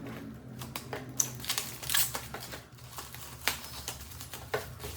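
Packaging and a product being handled by hand: irregular rustles and crinkles with small clicks and knocks.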